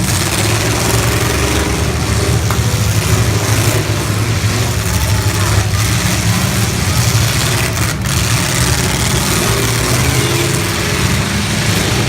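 Several full-size demolition derby cars' engines running together in a steady, loud, low rumble, rising and falling a little as drivers rev.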